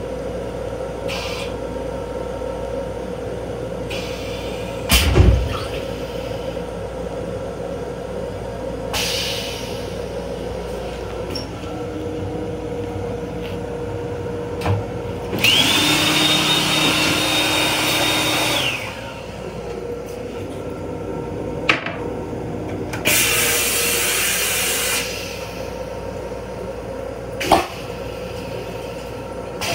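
Steady hum of a moving M7 commuter railcar heard from inside its restroom. Midway, the sink unit's hand dryer blows for about three seconds with a steady whine, and the faucet then sprays for about two seconds. A few sharp clunks, the last near the end as the toilet seat is lowered.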